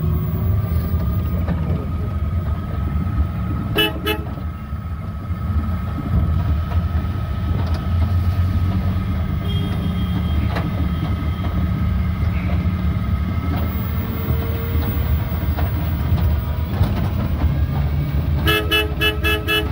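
Cabin noise of a Tata Magic van converted to electric drive, on the move: a steady low road rumble with a faint steady whine and no engine sound. A vehicle horn sounds briefly about four seconds in and again as a quick run of toots near the end.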